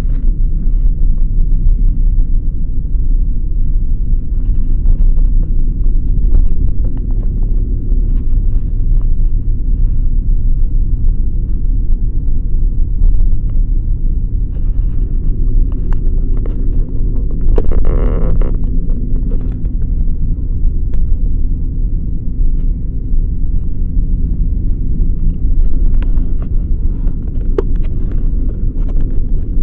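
A vehicle driving on a road: a steady low rumble of engine and tyres, with scattered short knocks and a brief higher-pitched noise about eighteen seconds in.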